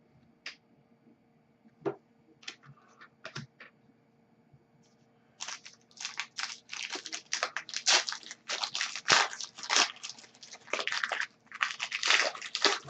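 A few light clicks, then from about five seconds in, dense crinkling and crackling of a hockey card pack's plastic wrapper being torn open and handled.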